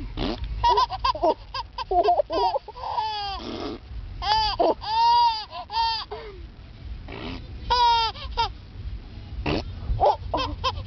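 Baby vocalising: a string of short, high-pitched babbles and squealing calls, each rising and falling in pitch, with a low rumble underneath.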